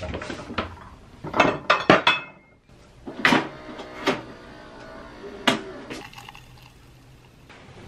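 Automatic coffee machine brewing into a ceramic mug: several sharp clicks and clunks as the mug is set in place and the machine works, with its pump humming underneath, then coffee running into the mug.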